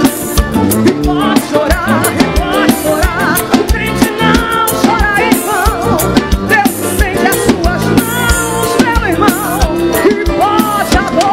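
Live band playing an upbeat instrumental passage: a drum kit keeps a steady, fast beat under keyboard and accordion chords, with a wavering lead melody over them.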